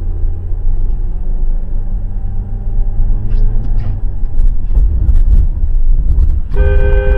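Steady low rumble of a car's engine and tyres on the road. About six and a half seconds in, a vehicle horn starts blaring and holds, as a warning with headlights coming straight toward the car.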